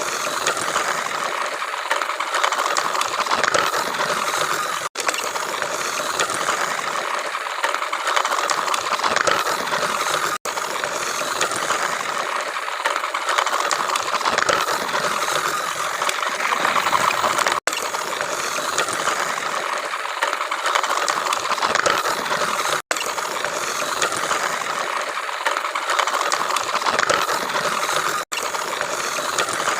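Small DC motor of a homemade PVC-pipe toy road roller running, a steady mechanical whir with rattling. The sound cuts out for an instant five times.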